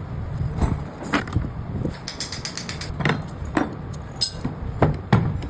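Irregular metal clicks and knocks of hand-tool work on a refrigerator compressor, with a creaking, ratchet-like sound, over a steady low hum.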